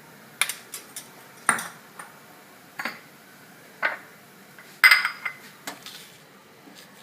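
Spoon and kitchen utensils clinking and knocking against a cooking pan and dishes: a dozen or so separate sharp clinks at uneven intervals, the loudest about five seconds in.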